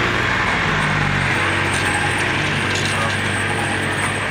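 A vehicle engine running at low speed, with the towed pirate-ship float and its trailer rattling as they are pulled along. A slight change in engine pitch comes about a second in.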